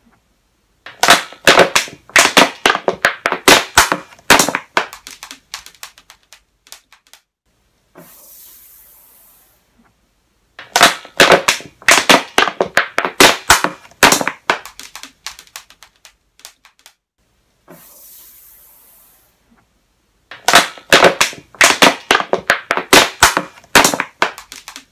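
Crumpled clear plastic bottle being twisted and crushed to imitate fireworks: three runs of quick, sharp crackles, each a few seconds long. A brief high hiss comes before the second and third runs, like a firework going up.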